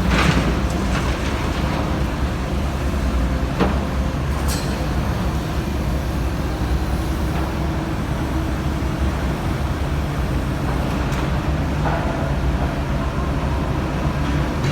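Komatsu PC350-7 excavator's diesel engine running steadily, with a couple of brief knocks in the first few seconds.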